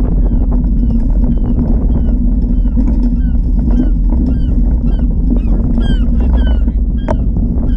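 Wind buffeting the microphone, with an animal's short, high, downward-sliding cries repeating about twice a second over it.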